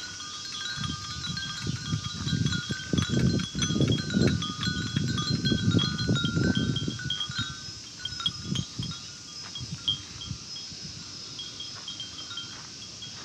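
Wind chimes (furin) ringing in many short, overlapping tinkles in the breeze, with low gusts of wind rumbling on the microphone that are strongest in the middle and ease off toward the end.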